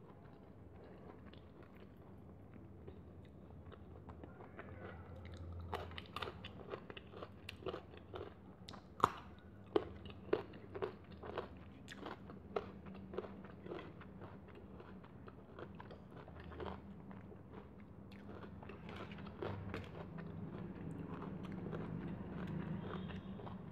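A person chewing and crunching food close to a clip-on microphone, with a run of sharp, crisp crunches through the middle stretch.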